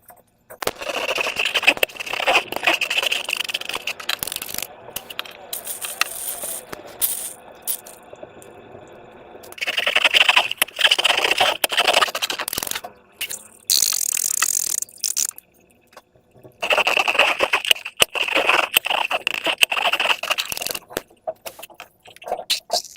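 Slime being squeezed and worked by hand with transparent balloons, crackling and scraping in three long bursts of a few seconds each, quieter handling in between.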